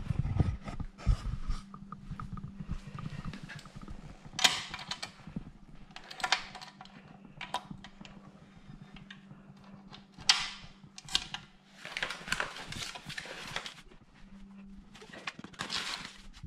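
Cardboard and plastic packing being handled and pulled about, rustling and scraping in several short spells, with scattered clicks and knocks, over a steady low hum.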